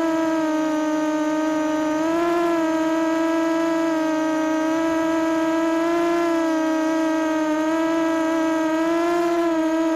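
FPV mini quadcopter's brushless motors and propellers whining at a steady pitch, recorded on board, the pitch rising slightly three times as the motors speed up.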